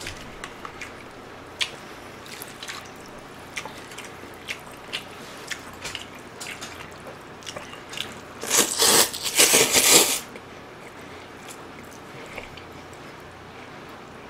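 Close-miked eating sounds: small wet chewing and mouth clicks, then a loud slurp of mul-naengmyeon, cold noodles in broth, lasting about a second and a half starting around eight seconds in.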